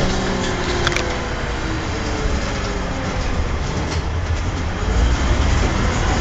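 MCW Metrobus running on its Cummins ISC Euro IV diesel engine: a steady low drone with faint whines sliding down in pitch. It grows louder about five seconds in.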